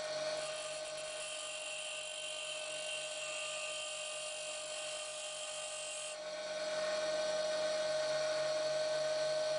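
Bench grinder running with a steady whine while the end of a high-carbon steel hex key is ground square against its wheel. The sound changes about six seconds in.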